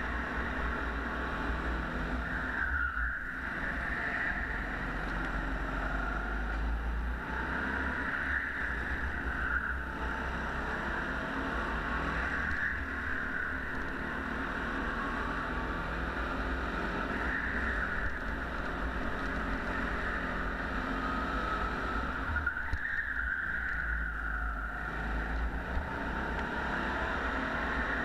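Go-kart engine heard close up from on board, running continuously with its pitch rising and falling as the kart brakes and accelerates through the corners, over a steady low rumble.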